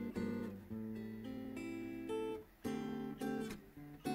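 Background music: an acoustic guitar strumming chords, with a new chord every half second or so.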